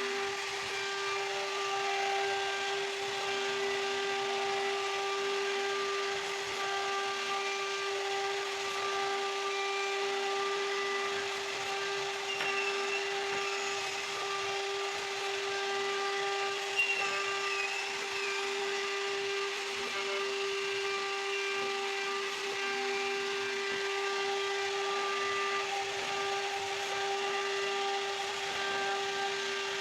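CNC router spindle running and cutting wood, a steady high whine with a hiss of cutting over it.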